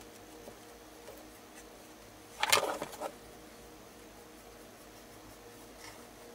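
Faint steady room hum, broken about halfway through by a short, loud clatter of handling as the stretched canvas on its wooden frame is lifted and turned on its edge.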